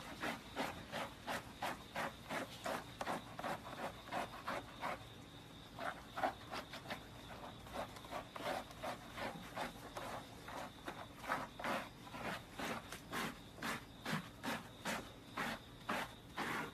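Handheld brushes scrubbing a golden retriever's wet, lathered coat in quick, even strokes, about three a second.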